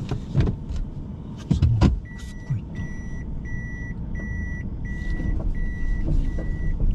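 A few sharp clicks, then about two seconds in a car's reverse-gear warning beep starts: a high beep repeating about one and a half times a second. Under it runs the low hum of the car's engine, heard inside the cabin.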